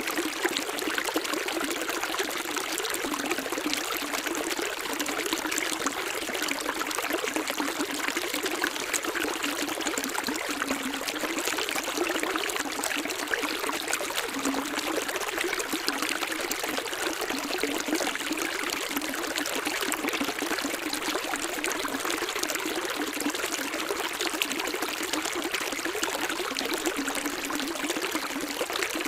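Running water trickling and splashing steadily, like a small stream or a pouring flow over rocks, with fine bubbling detail and little low rumble.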